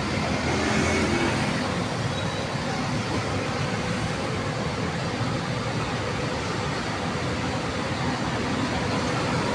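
Steady road traffic noise from cars, vans and motorcycles on a busy multi-lane road.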